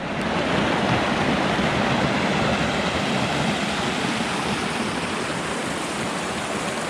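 Fast-moving mountain stream rushing steadily: thundering water.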